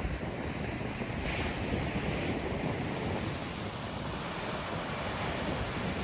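Ocean surf breaking and washing up a sandy beach as a steady hiss, with a brighter wash about a second and a half in. Wind rumbles on the microphone underneath.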